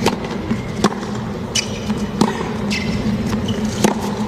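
A tennis rally on a hard court: the ball is struck by rackets and bounces in a few sharp knocks, roughly every second and a half, with a couple of short shoe squeaks over a steady background hum.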